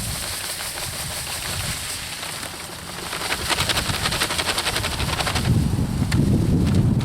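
Pool filter sand pouring from a bag into a sand filter tank, with a dense crackling hiss of grains from about halfway through. Wind buffets the microphone near the end.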